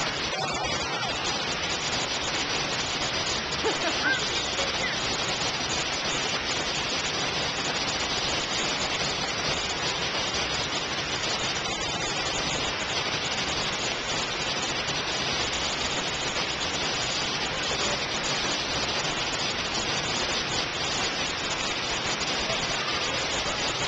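Waterfall: a steady, even rush of water falling into a plunge pool, unchanging throughout.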